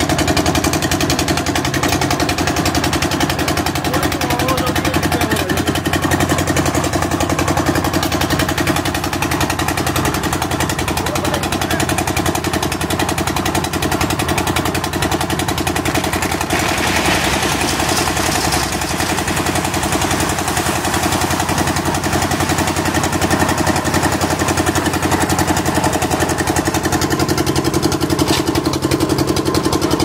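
Engine of a portable drum concrete mixer running steadily with a fast, even chugging beat while the drum turns. Around the middle, gravel tumbling into the drum adds a louder rattling rush for a few seconds.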